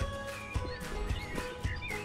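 Background music with a steady beat, about two beats a second, over held tones and some wavering high notes.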